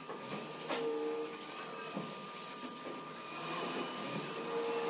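Workshop noise: a steady machine hum with a thin constant whine, broken by a couple of light knocks about one and two seconds in.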